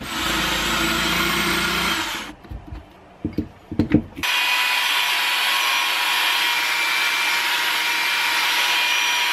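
Angle grinder with a red abrasive nylon wheel polishing an aluminium windlass cover: a steady run against the metal from about four seconds in until near the end. Before it, a power tool runs for about two seconds and stops, followed by a few knocks of handling.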